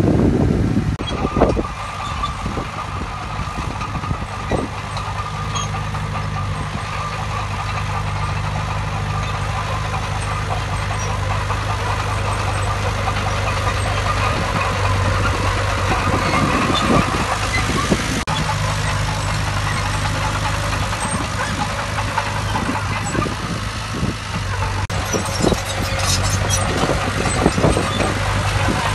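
Heavy diesel earthmoving machine engine running steadily, with a few metallic clanks.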